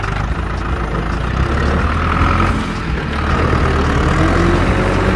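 Tractor engine running sound effect: a steady low diesel rumble, dubbed over the toy tractor.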